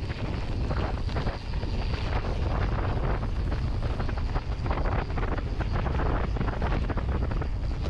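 Wind buffeting the microphone over the rumble of mountain-bike tyres rolling along a bumpy dirt and grass track, with irregular knocks and rattles from the bike as it goes over bumps.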